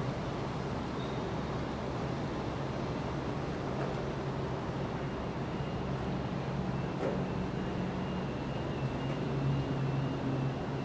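Steady city traffic noise with a constant low hum.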